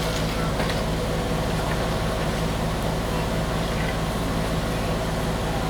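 Steady low mechanical hum of an idling engine or motor, unchanging in level throughout.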